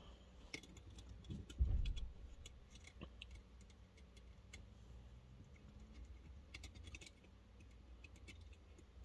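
Light, irregular clicks and taps of small plastic toy parts and screws being handled and set down on a work surface, with one dull thump about one and a half seconds in.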